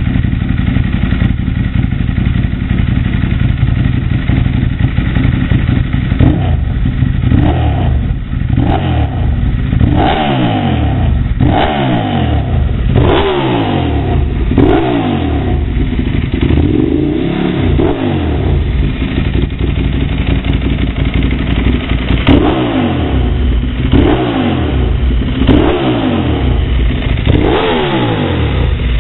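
Ducati 1098's 90-degree L-twin engine, breathing through its stock underseat exhaust run open, idles steadily. About six seconds in, it starts being blipped, revving up and dropping back about every second and a half.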